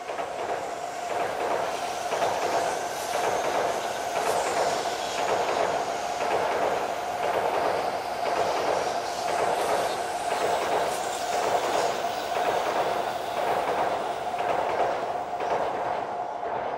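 N700 Series Tokaido Shinkansen running past: a steady rush of wheels on rail with a constant hum and a regular pulsing beat as the cars go by, easing off slightly near the end.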